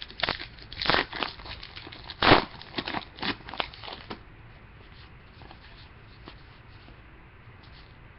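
Crinkling and rustling of trading cards and a foil card-pack wrapper being handled, a run of sharp crackles over the first four seconds, then only faint handling.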